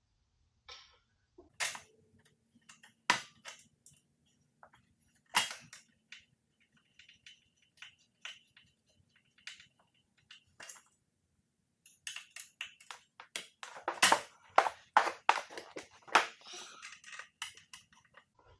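Rear rack and tools being handled while it is fitted to an e-bike: scattered sharp clicks and knocks of metal parts, with a quick run of them about twelve seconds in.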